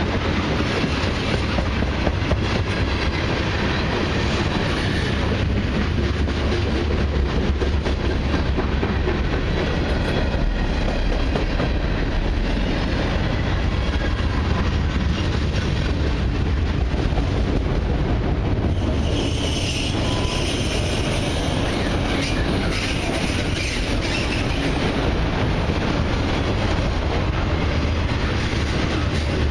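Cars of a long mixed freight train rolling past: the steady rumble and clatter of steel wheels on the rails, with a brief higher wheel squeal about two-thirds of the way through.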